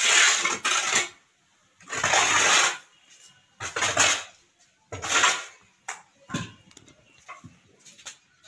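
Long-handled scraper pushed across a concrete floor, gathering wet cow dung in four loud scraping strokes about a second and a half apart, then a few shorter, lighter scrapes and knocks.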